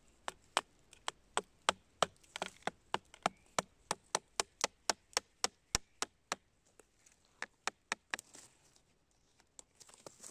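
A hammer striking a chisel into wood, about three sharp blows a second, to cut a reishi mushroom out of the wood it grows on. The strikes stop about 8 s in, and a few lighter taps follow near the end.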